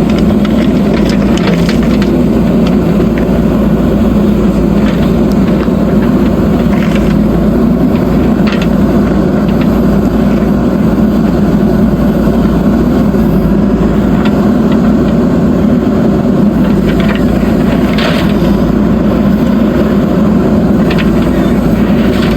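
Diesel engine of a backhoe loader running steadily under load while it loads gravel into a tipper truck, with occasional short clicks and knocks.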